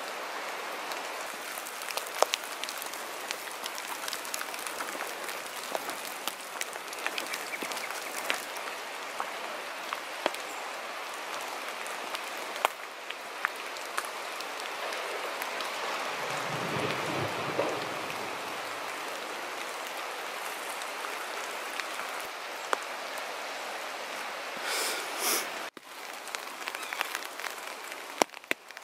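Steady patter and hiss of rain and drips in the forest. A little past halfway, a low rumbling lasting about two seconds comes from ice collapsing on the ice floe across the river.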